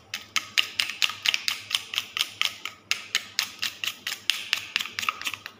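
Knife blade scraping a block of chocolate in quick, even strokes, about five crisp scrapes a second, shaving off chocolate curls.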